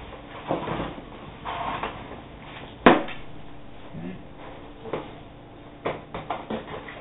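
Handling noises of a keyboard and its packaging being unpacked: scattered clicks, light knocks and brief rustles. One sharp knock about three seconds in is the loudest sound.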